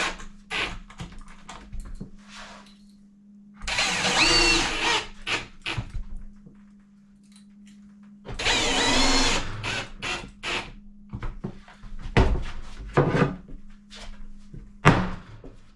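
Cordless drill driving screws in two runs of about a second and a half each, its motor whine bending in pitch, then a few sharp knocks of wood parts being fitted together.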